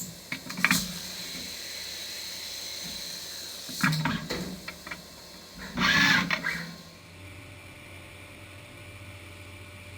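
Heckert HEC 800 Athletic horizontal machining center at work on a truck crankcase. A steady hum and high whine run under three short, loud bursts of cutting or clanking noise, at about the first second, about four seconds in, and about six seconds in. About seven seconds in the whine stops, leaving a low hum.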